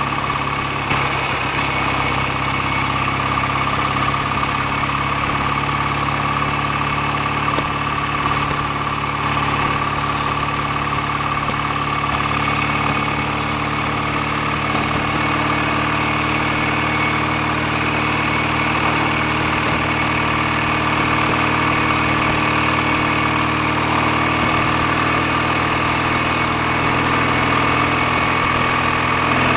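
BSA A65 650 cc parallel-twin engine running at a steady, unchanging speed, its note holding even throughout.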